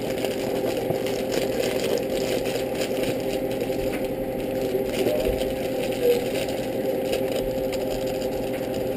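A plastic bag of raisins crinkling and rustling in the hands as it is opened and tipped out, over a steady low hum.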